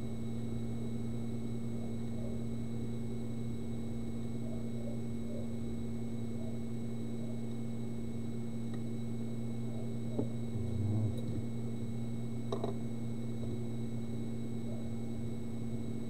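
A steady machine hum, like a running fan, with a faint constant high whine, and a few light clicks about ten and twelve and a half seconds in.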